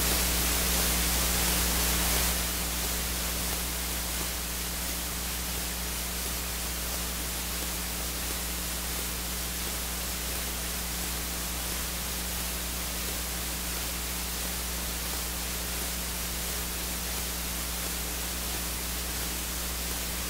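Steady electronic hiss with a low hum, the background noise of the recording with no music or voices. The hiss is a little louder for the first two seconds.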